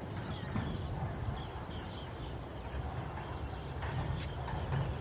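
Outdoor ambience of insects chirring steadily at a high pitch, with short scattered bird chirps over a low rumbling background noise.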